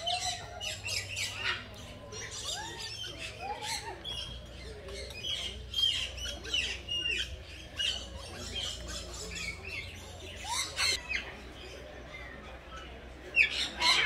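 Many birds squawking and chirping in short calls throughout, with a louder cluster of squawks near the end.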